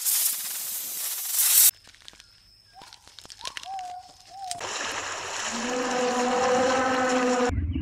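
A snake hissing for a little under two seconds, then a quiet stretch with a few faint clicks and short whistled chirps. About two thirds of the way in, elephants wade through a river: water sloshing and splashing under a steady low tone, which cuts off suddenly near the end.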